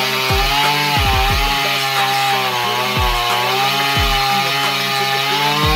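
Jonsered 535 two-stroke chainsaw running at full throttle while cutting through a thick log, its pitch sagging slightly as it loads in the cut. A beat of deep falling bass notes runs underneath.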